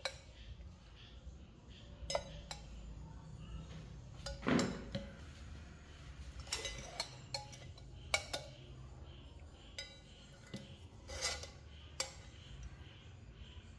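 Stainless steel mug and metal clamp leads being handled: scattered clinks and light knocks of metal, the loudest a knock about four and a half seconds in.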